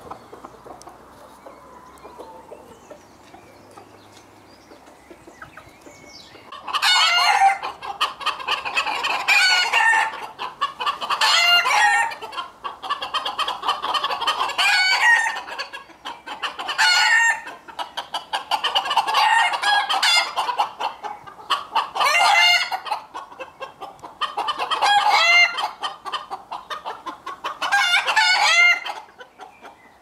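Roosters crowing again and again, loud wavering calls of a second or two each, starting about seven seconds in, among chickens clucking. The first few seconds hold only soft clucking.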